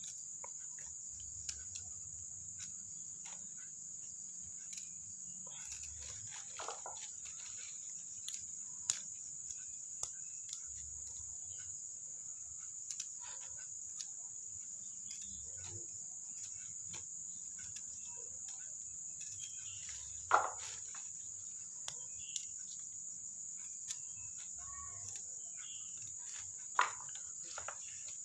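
A steady high-pitched insect trill drones on, with small sharp clicks and crackles now and then as a knife trims the roots off bawang rambut onions over a rustling plastic bag.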